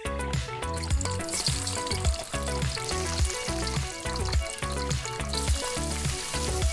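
Onion slices dropping into hot oil and sizzling as they fry, the sizzle swelling about a second in and again near the end. Background music with a steady beat plays throughout.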